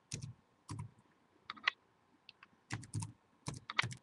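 Typing on a computer keyboard: irregular keystrokes in short clusters, each a click with a dull thud.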